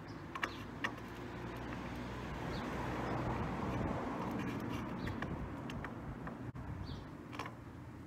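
Low engine rumble of a passing vehicle, swelling to a peak midway and fading away, with a few light clicks near the start.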